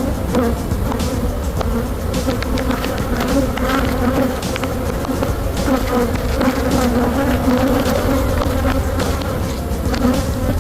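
Honey bees buzzing in numbers around an opened hive, a steady dense hum, with scattered light clicks throughout.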